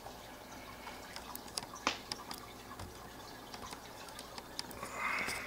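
Aquarium water dripping and trickling: scattered irregular drips over a faint steady hum.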